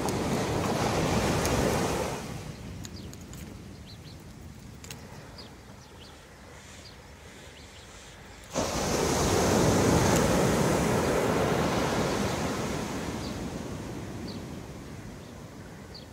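Small waves breaking and washing up the sand, in two surges: the first dies away after about two seconds, the second starts suddenly about eight and a half seconds in and fades over several seconds.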